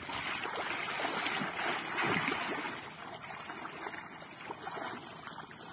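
A swimmer doing the breaststroke in shallow sea water, splashing and sloshing with each stroke. It is loudest over the first half and then grows fainter.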